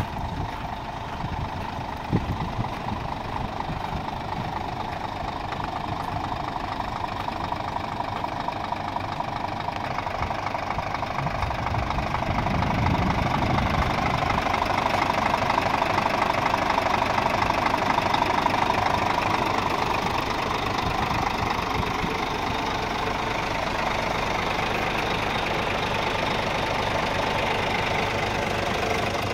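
Scania R 450 tractor unit's 13-litre inline-six diesel idling steadily. It grows louder about halfway through. There is one sharp click about two seconds in.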